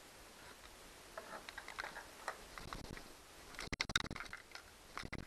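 Small clicks and taps of plastic leaf-blower parts being handled and fiddled with by hand, with a quick cluster of louder knocks a little under four seconds in and another near the end.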